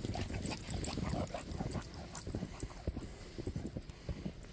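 Footsteps crunching through fresh, deep snow, several uneven steps in quick succession.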